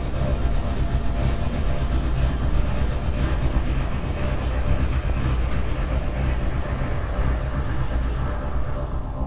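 Steady, loud low rumble of vehicle noise.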